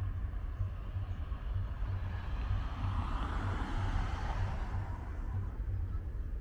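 A car passing on the road, its tyre and engine noise swelling to a peak about three to four seconds in and then fading, over a steady low rumble.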